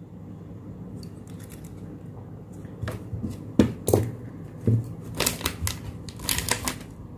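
Handling noises on a workbench: a few light clicks and knocks as the small amplifier board and its wires are moved and set down, then two brief bursts of rustling near the end.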